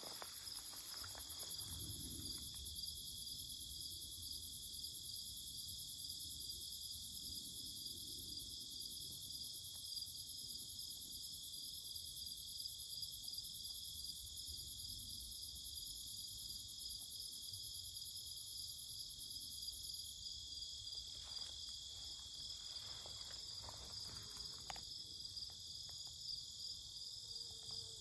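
Meadow insect chorus in late summer: several singing insects trilling steadily in high, pulsing layers. The highest layer cuts off about two-thirds of the way through, leaving the lower trill.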